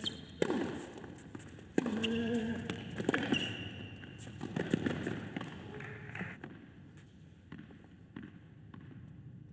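Tennis rally on a hard court: about five racket strikes on the ball, roughly a second and a half apart, with a player's short grunt on some shots. The hitting stops about six seconds in, leaving quiet arena room tone.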